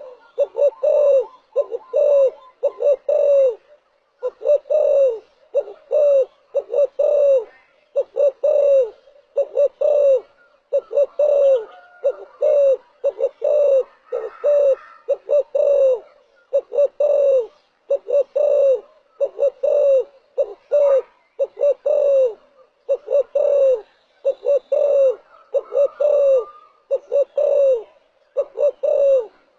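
Spotted dove cooing: short groups of three to five low coos, each note dipping at its end, repeated about every one and a half to two seconds. This is the repeated territorial coo that Vietnamese keepers play as decoy song.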